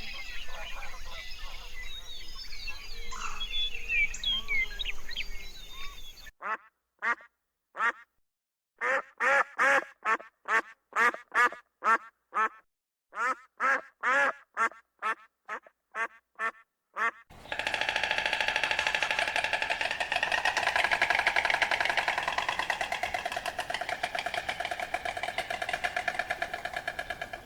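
Small birds chirping at first. Then a duck quacks again and again in short separate calls with silent gaps, and from about two-thirds of the way in many quacks overlap in a continuous din, as from a flock of ducks.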